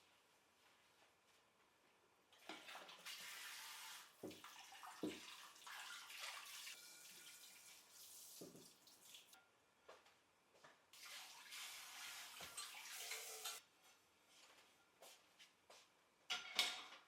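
Faint water running from a tap, in two stretches of several seconds each, with a few clicks and knocks.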